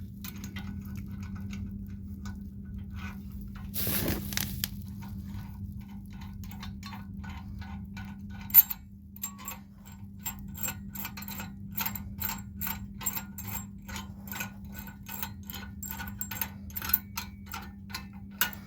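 A nut being run down and tightened on a minibike's steel neck bolt: a long run of quick, even metallic clicks, several a second, like a ratchet wrench, with one sharp knock about eight and a half seconds in. A steady low hum runs underneath.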